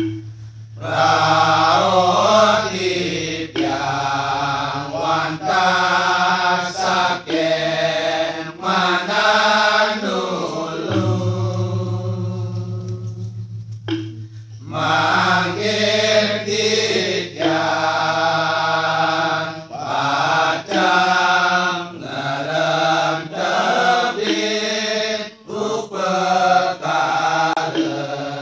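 Balinese genjek: a group of men singing in a rhythmic, chant-like chorus of short repeated syllables over a low held drone. The singing eases for a moment about halfway through, then picks up again.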